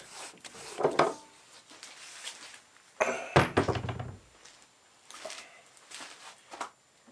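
Metal three-jaw lathe chuck being taken off the threaded spindle nose of a Myford Super 7 lathe and set down: light metal clunks and knocks, with one heavy thunk about three seconds in.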